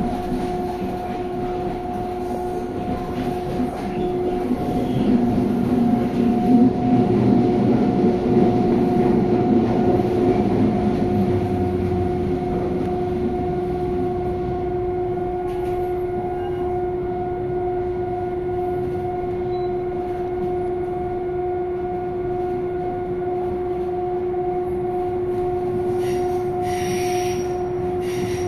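Interior of a CPTM Série 2000 electric multiple-unit train under way: a steady hum with two constant tones over wheel-and-rail running noise, the rumble growing louder for several seconds in the first half before settling.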